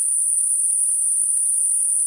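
Computer-generated Gaussian narrowband noise centred on 9.5 kHz, a tinnitus-masking sound: a steady, even, high-pitched hiss with nothing lower in pitch.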